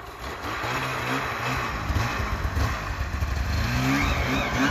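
Arctic Cat Alpha One snowmobile's two-stroke engine revving, its pitch rising and falling with the throttle as the sled pulls away through deep snow.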